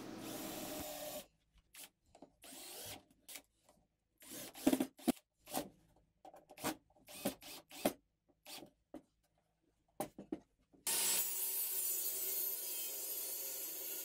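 Plywood parts of a small wooden bird table being handled on a wooden workbench: a string of short knocks, taps and scrapes of wood on wood, with short silent gaps between them. About eleven seconds in, a steady hiss begins.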